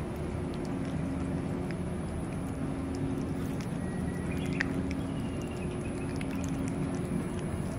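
A cat eating wet food from a metal plate: small wet clicks of chewing and lapping, over a steady low mechanical hum. A brief high chirp about halfway through.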